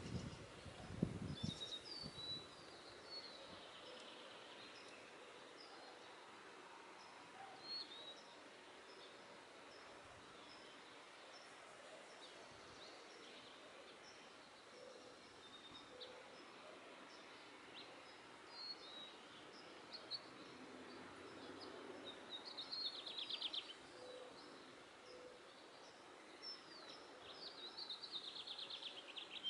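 Faint, scattered high chirps of small birds, with two short, rapid twittering trills in the second half. A few low thumps in the first two seconds.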